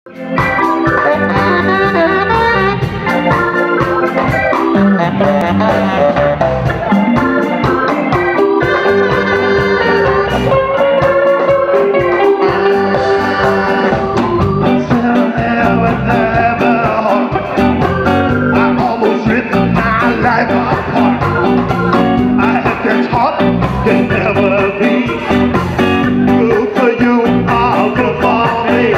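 Live band playing: saxophone over electric guitar, bass guitar and drums, with a steady beat.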